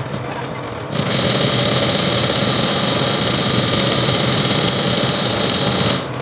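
Belt-driven transformer coil-winding machine running, winding enamelled copper wire onto a bobbin: a steady high whir that starts suddenly about a second in and stops abruptly about five seconds later.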